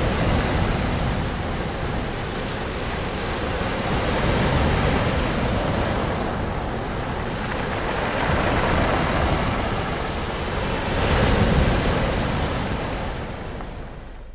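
Ocean waves breaking and washing in: a continuous rush of surf that swells about every four to five seconds, the loudest surge about three-quarters of the way through, then easing off near the end.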